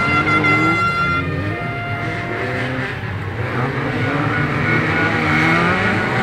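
Race car engines revving up and down as cars run on a dirt circuit. A horn blares steadily until about a second in, then sounds again in short rapid pulses from about halfway through.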